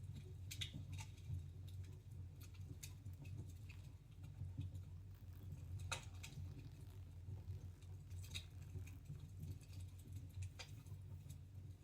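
Wood fire in a fireplace crackling: irregular small pops and snaps, the sharpest about six seconds in, over a steady low hum.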